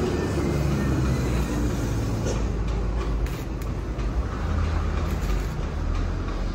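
Stick (arc) welding on a steel exhaust muffler for a truck: the arc crackles and sizzles as the rod burns. Under it runs a steady low rumble.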